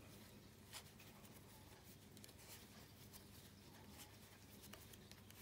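Near silence with the faint clicks and rustle of wooden knitting needles working fluffy yarn, one click a little louder about a second in, over a low steady hum.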